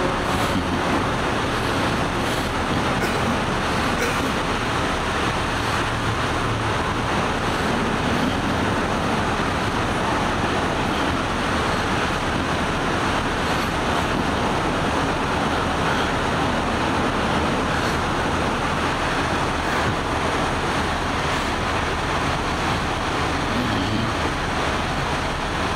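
Steady road-traffic noise: an even rumble of vehicle engines and traffic that holds level throughout, with no sudden sounds.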